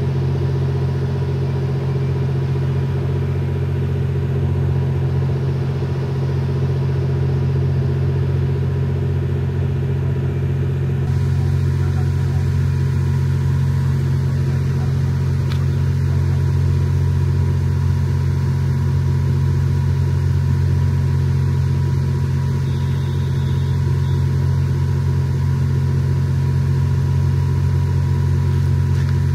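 Twilight Express Mizukaze (KiHa 87 series hybrid train) standing at the platform, its diesel generator engines idling with a steady, even drone that never revs up.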